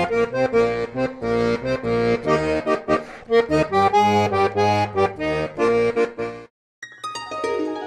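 A lively tune on one instrument: sustained notes of a melody over a pulsing bass and chords. It stops short about six and a half seconds in, and after a brief gap plucked notes start near the end.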